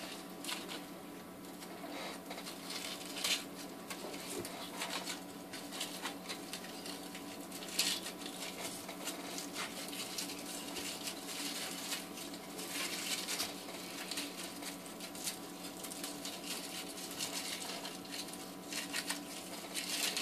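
Aluminium foil crinkling and rustling in irregular bursts as it is unwrapped by hand from a small plastic pot, over a faint steady electrical hum.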